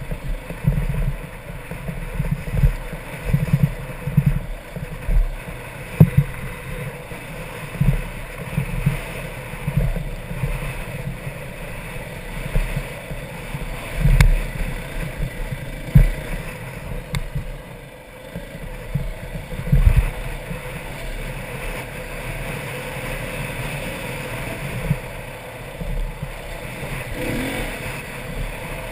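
Dirt bike engine running while the bike is ridden over a rough, rocky trail, with irregular low thumps every half second or so.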